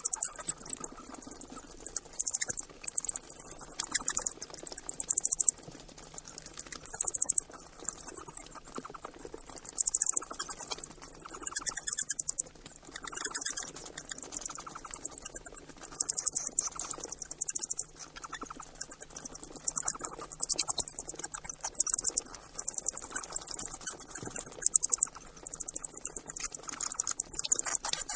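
Mice squeaking in a run of very high-pitched, rapidly pulsing chirps, coming in short bursts every second or two.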